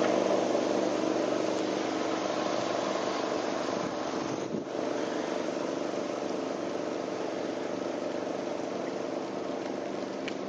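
A moving bicycle on wet asphalt: a steady hum and hiss from the tyres and drive that holds an even pitch, with a brief dip about four and a half seconds in.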